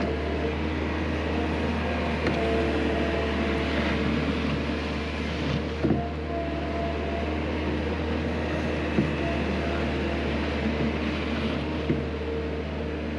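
Skid steer engine running steadily, with a few short sharp knocks.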